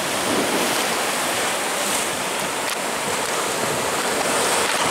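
Sea surf washing in over shoreline rocks, a steady rush of churning white water.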